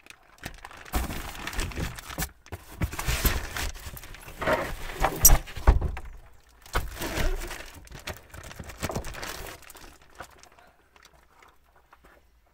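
Large vacuum-packed slabs of beef ribs being handled and lifted out of a car trunk: plastic wrap crinkling and rustling with dull thuds against the trunk floor in irregular bursts, and one sharp knock about five seconds in. The handling dies away about ten seconds in.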